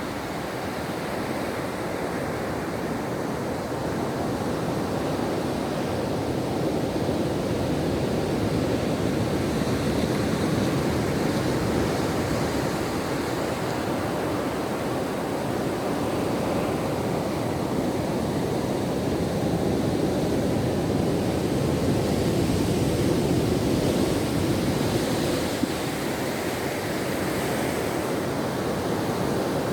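Ocean surf washing continuously onto the shore, a steady rushing that slowly swells and eases, louder near the middle and again a few seconds before the end.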